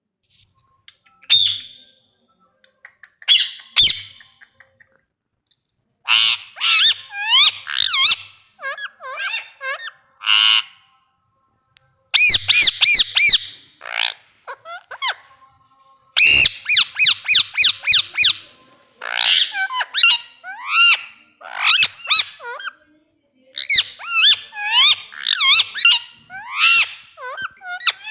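Parrot squawking and chattering: quick runs of short calls that slide up and down in pitch. A few single calls come first, then bouts start a few seconds in and grow almost continuous in the second half.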